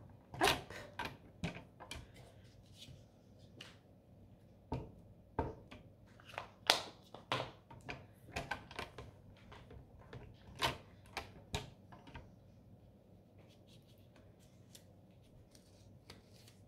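Paper and a mushroom stamp being handled on a craft desk while stamping over a mask: irregular small taps and clicks, thinning out over the last few seconds.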